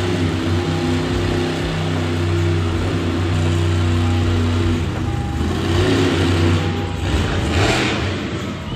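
Grave Digger monster truck's supercharged V8 engine running at high, steady revs while the truck balances on its rear wheels in a wheelie. Near the end the note is joined by a short rush of noise as the front wheels come back down.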